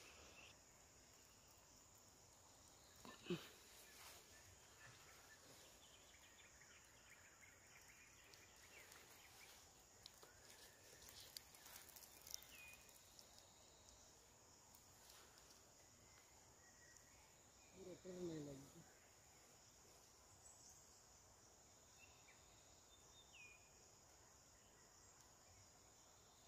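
Near silence: faint outdoor ambience with a steady high-pitched insect drone. A brief faint call comes about two-thirds of the way through.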